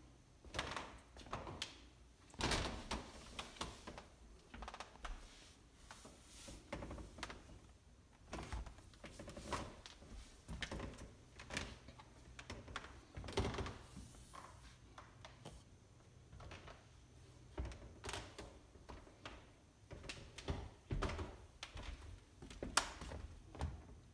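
Slow footsteps on a hardwood floor: irregular soft thumps and knocks, roughly one a second.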